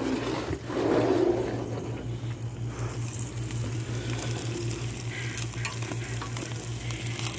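Hamburger patties sizzling on a propane gas grill: a steady frying hiss, with a low steady hum underneath and a short muffled sound about a second in.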